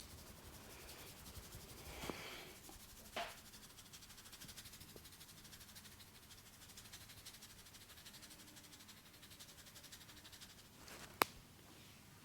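Two sharp cracks against a faint hiss, a softer one about three seconds in and a much louder one near the end: a neck being cracked.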